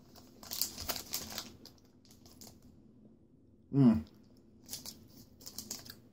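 Plastic RXBAR protein-bar wrapper crinkling as it is handled, in two spells of rustling with a lull between. A brief vocal sound from a person comes about four seconds in, the loudest moment.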